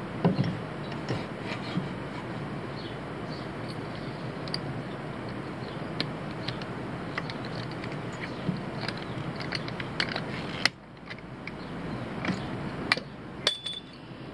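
Scattered light metal clicks and knocks of a car jack and a wooden board being set in place under a truck's hitch, over a steady background hiss. A sharp knock comes about ten and a half seconds in, after which the background is quieter, and there is a short squeak near the end.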